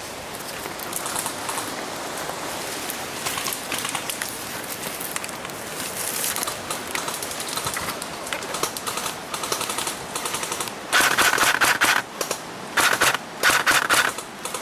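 Airsoft rifle firing on full auto: two loud bursts of rapid clicking shots, each about a second long, near the end. Before them, rustling through brush and twigs with faint distant firing.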